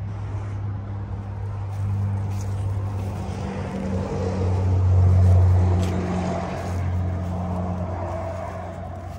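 A motor vehicle's engine running with a steady low hum, growing louder to a peak about five seconds in and then fading away.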